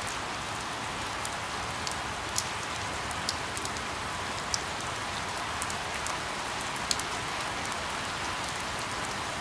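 Steady rain falling on leaves, an even hiss dotted with sharp ticks of individual drops striking close by.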